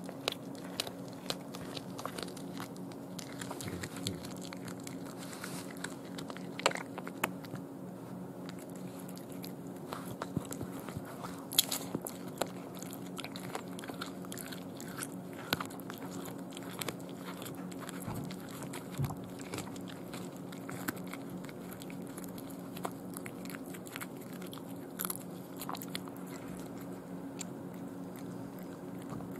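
A cat chewing and crunching through a whole raw day-old chick, with many short, irregular crunches as the bones break, over a steady low hum.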